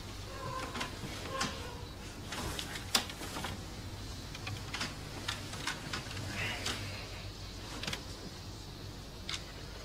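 Bedsheets rustling, with scattered soft clicks and a sharper knock about three seconds in, as two people shift about under a sheet in bed.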